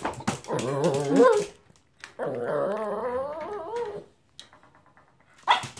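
Toy poodle whining in two long, wavering cries, the second about two seconds long. A single sharp knock comes near the end.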